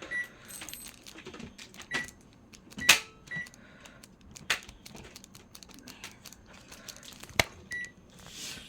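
Several short, high electronic beeps among scattered clicks and knocks from objects being handled; the loudest knocks fall a little before 3 seconds and again about 7 seconds in.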